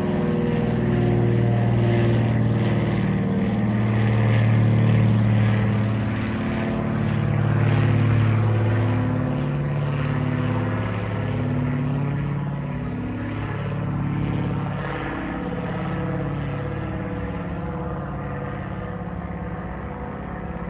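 Twin-engine propeller airplane droning as it passes overhead. The drone swells and dips every few seconds, drops slightly in pitch from about ten seconds in, and slowly fades toward the end as the plane moves away.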